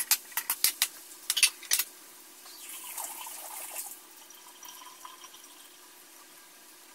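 Metal spatula clinking and scraping against an aluminium wok as sliced onions are stirred, a quick run of sharp clicks that stops about two seconds in. A brief soft hiss follows for about a second and a half.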